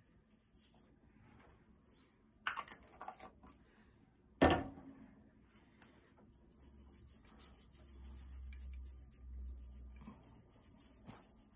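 Sugar lip scrub being worked over the lips with a silicone lip brush: a steady, scratchy rubbing from about six seconds in until near the end. Before it, a few light clicks and one sharp knock about four seconds in.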